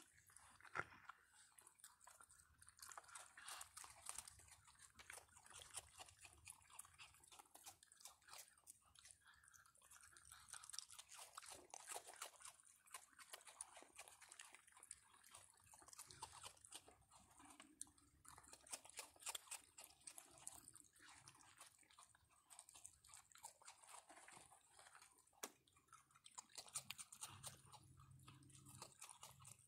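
Raccoons chewing and crunching dry food, a faint, irregular run of small crunches and clicks.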